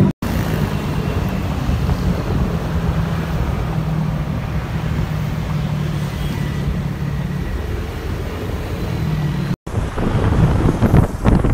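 Motorcycle taxi under way, its engine a steady drone under wind blowing on the microphone. After a sudden cut near the end, louder, more uneven traffic noise from a jam of cars and motorbikes.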